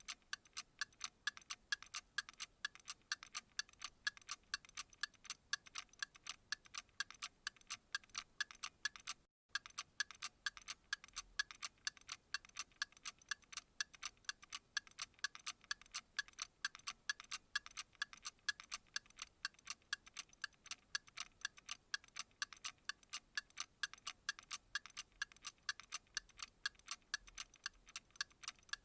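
Clock ticking in a steady, even rhythm of crisp ticks, several a second. The ticking cuts out for an instant a little over nine seconds in, then carries on.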